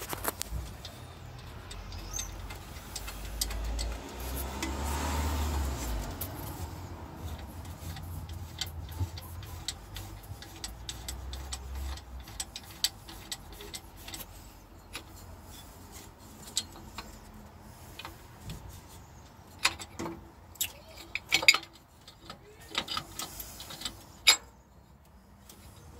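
Scattered light clicks and knocks of a 1968 Dodge Charger's metal engine fan and pulley being handled and worked onto the water pump hub behind the radiator. A few sharper knocks come near the end, and there is a brief low rumble about four to six seconds in.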